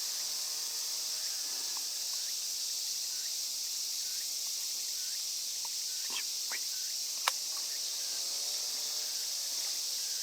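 Steady, high-pitched chorus of insects, with faint distant voices and a single sharp click about seven seconds in.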